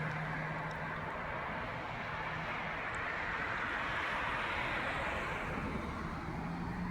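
Steady road traffic noise from cars at an intersection, with a low engine hum that fades about a second in and returns near the end.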